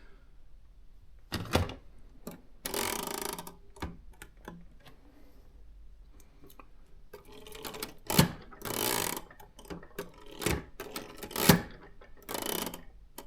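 Consul 1511 typewriter being worked by hand: scattered sharp clicks of its levers and keys, with three short ratcheting runs of the carriage escapement as the carriage is moved while the tab and margin stops are set.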